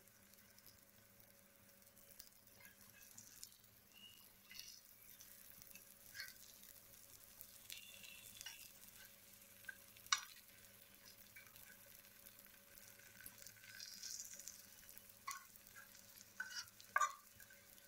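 Raw banana slices frying in a little oil on a nonstick tawa with a faint sizzle, while a metal spatula scrapes and taps the pan as the slices are turned over; the sharpest tap comes about ten seconds in, with several more near the end.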